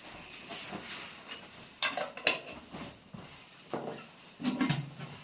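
A handful of sharp clinks and knocks, like hard household objects being handled, spread irregularly over a few seconds.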